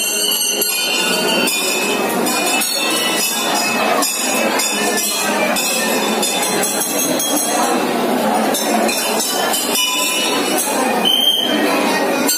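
Temple bells ringing continuously, many high ringing tones together, over the chatter of a crowd.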